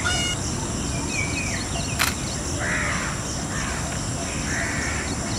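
Peacock calls: a pitched call fading out at the start, then several short, hoarse calls over steady outdoor background noise, with one sharp click about two seconds in.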